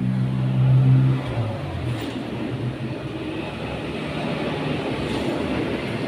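A passing motor vehicle: a low engine hum, loudest about a second in, that drops in pitch, then a steady rushing noise.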